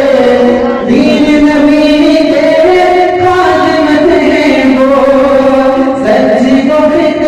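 A man singing a poem unaccompanied into a microphone, drawing each line out in long held notes that step up and down in pitch, with short breaths between phrases.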